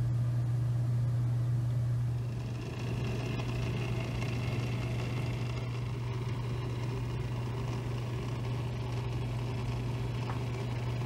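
Steady low hum of a custom water-cooled PC running, its coolant pump and fans going, with a faint higher whine joining about two seconds in.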